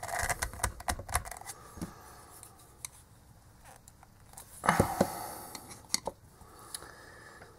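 Plastic clicking and scraping as the plastic dome of an LED bulb is twisted and pried against its housing with a thin tool: a quick run of sharp clicks at the start, quieter scraping, then a louder scrape a little past halfway and a few more clicks.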